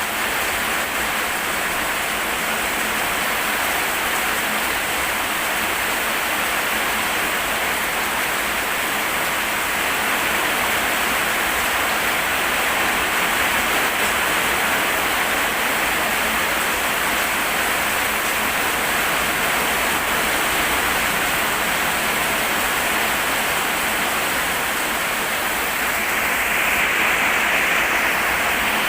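Steady rain falling, with a slight swell in loudness near the end.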